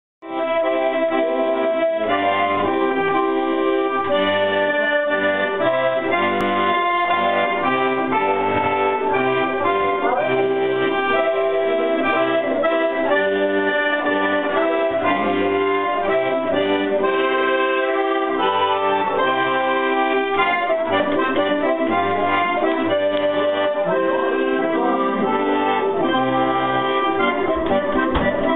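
Button accordion playing a tune, melody notes over held chords, at a steady level throughout.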